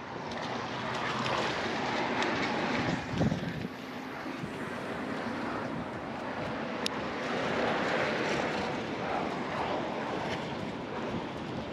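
Wind gusting over the microphone, a steady rushing that swells and fades, with choppy sea water below. A brief bump about three seconds in.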